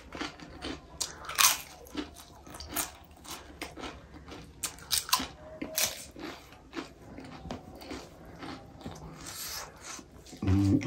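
Close-up eating sounds: crisp papad crunched and chewed, in irregular sharp crunches, with a brief low hum near the end.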